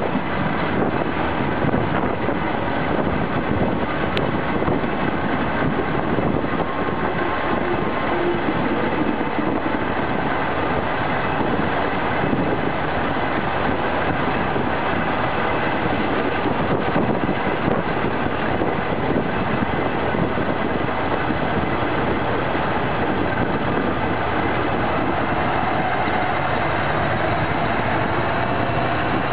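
1950s-built ES401 catenary-maintenance railcar, heard right at its bogie while running: its wheels roll on the rails and its brake rigging and suspension rattle in a steady, loud running noise.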